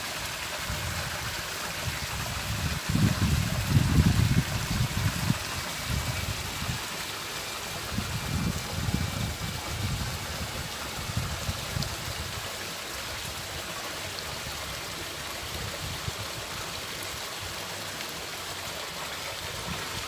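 Wind buffeting the microphone in low, uneven rumbles over a steady rushing hiss, the gusts strongest about three to five seconds in and again around eight to ten seconds.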